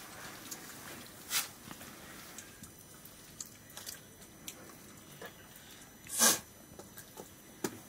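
A family eating rice by hand from metal plates, with small scrapes and clicks of fingers and a ladle on the plates. Two short, sharp hissing bursts stand out, one about a second and a half in and a louder one about six seconds in.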